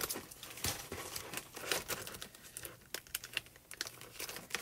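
Crinkling and rustling of packaging being handled, with scattered small clicks and taps.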